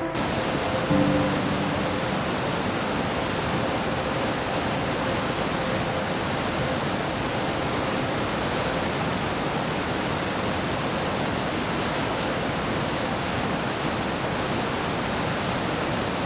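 Steady rush of white water: the Storån river at Storåfallet waterfall cascading over boulders.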